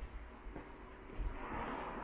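Quiet city-street ambience with low thuds and a soft rushing noise that swells up about halfway through and fades near the end.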